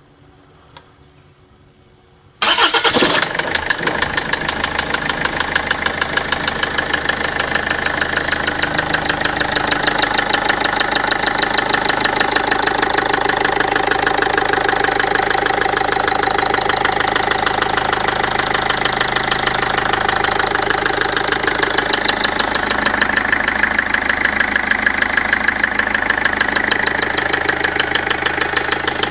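Land Rover Freelander TD4 four-cylinder turbodiesel starting about two and a half seconds in, then idling with a fast, regular knock: the engine knock the owner is recording.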